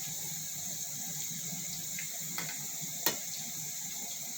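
Yam fries deep-frying in hot oil, with a steady sizzle. A single sharp click comes about three seconds in.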